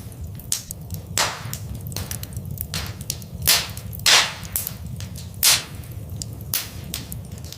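Wood fire in a fireplace crackling: a steady run of small sharp pops and snaps, with a few louder pops spread through, over a continuous low rumble of the flames.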